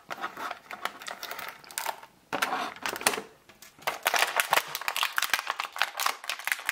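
Thin clear plastic packaging crinkling and crackling as it is handled to free an action figure and its accessories. It comes in dense clicking bursts with a couple of short pauses.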